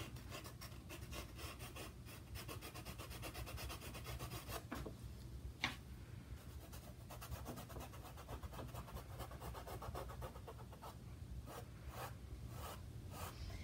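Faint, quick rubbing and scratching strokes of a hand working a dark drawing stick across a canvas, with a sharper tap about six seconds in and a low hum underneath.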